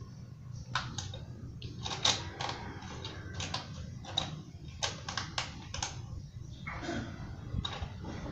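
Irregular clicks and light knocks from hands working on the front end of a Kymco Super Z 125 scooter during fairing assembly, over a steady low hum.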